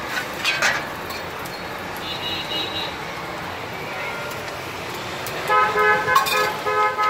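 A road vehicle's horn honks on and off for about a second and a half near the end. This is the loudest sound. Under it runs a steady hiss from an omelette frying in oil on a flat iron griddle.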